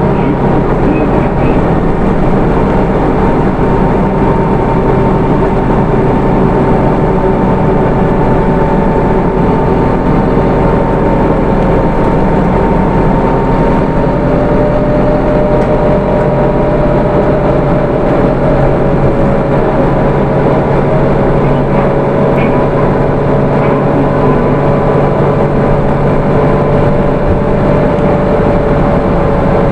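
Hino Rainbow II bus with its four-cylinder 4HK1 turbodiesel running steadily under way, with a drivetrain whine that drifts gently up and down in pitch over a steady rumble of engine and road noise.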